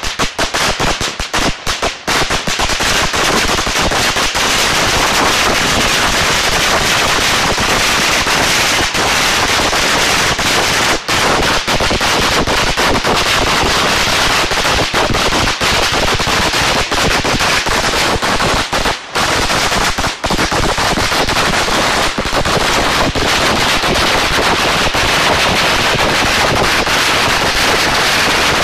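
A long string of firecrackers going off in a loud, rapid, continuous crackle of bangs, with a few momentary breaks near the start and about two-thirds of the way through.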